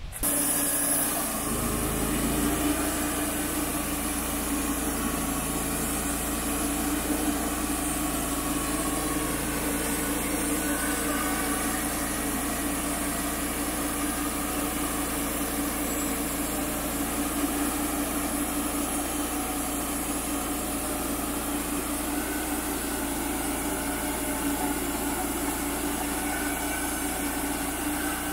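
Wood-Mizer LT35HD portable sawmill's engine running steadily.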